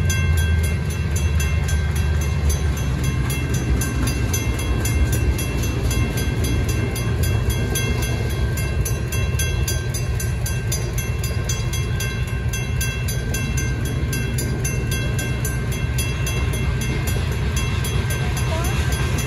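Freight cars of a manifest train rolling through a grade crossing, a steady low rumble of wheels on rail, with the crossing signal's bell ringing in quick, even strokes over it.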